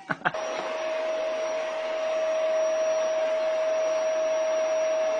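A small electric motor and fan running steadily: an even rush of air with a constant humming tone through it, starting suddenly after a couple of clicks.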